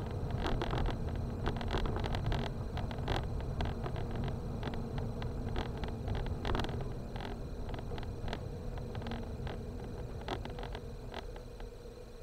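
Car driving over a rough, broken gravel road, heard from inside the cabin: a steady low rumble of tyres and engine with frequent sharp knocks and rattles from the uneven surface. It grows quieter near the end.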